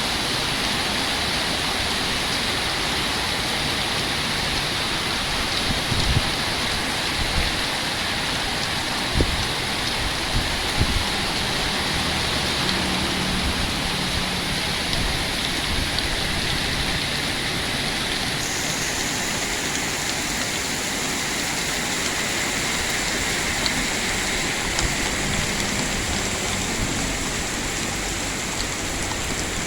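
Heavy rain pouring steadily, an even hiss of water with a few brief low thumps.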